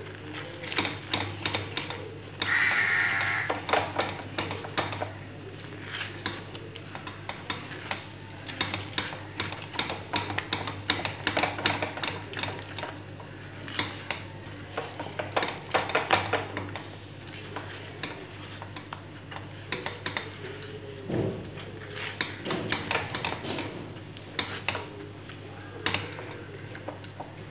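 Red silicone spatula stirring and scraping thick custard halwa in a stainless steel pan, with irregular scrapes and taps against the pan. A louder scrape lasting about a second comes about three seconds in. The halwa is cooked down thick and glossy with ghee, at the last stage of stirring before the heat goes off.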